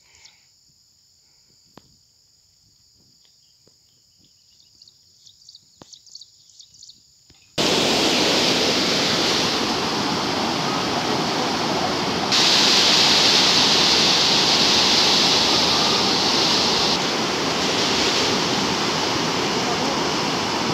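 A faint steady high-pitched drone with a few soft clicks, then a sudden loud, steady rush of a fast, turbulent river, growing louder and brighter a little past halfway.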